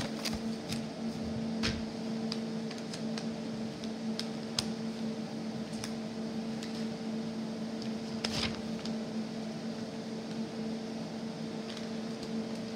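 Steady hum of a running machine, with scattered light clicks and rustles of paper handled close to the microphone. The loudest rustle comes about eight seconds in.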